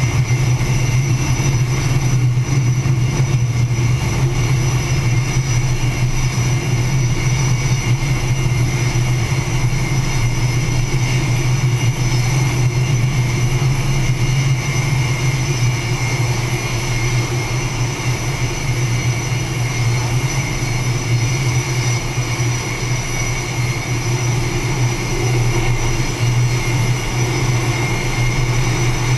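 Jet aircraft engines running steadily on an aircraft carrier's flight deck during catapult launch operations: a loud, even noise with a high whine held throughout.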